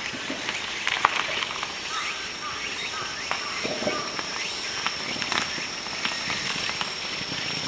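Outdoor park ambience: a steady high-pitched insect trill held throughout, with scattered short chirps and faint ticks over it.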